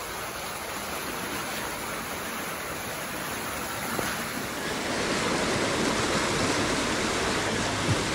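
River water rushing over shallow rapids, a steady rushing noise that grows louder about five seconds in. A short knock sounds near the end.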